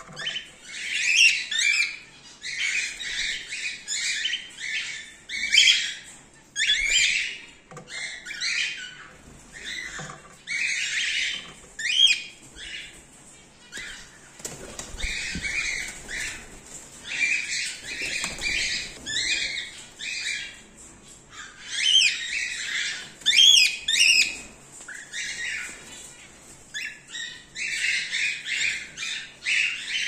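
Cockatiels chattering and calling over and over in a colony aviary, with a brief flurry of wing flaps about halfway through.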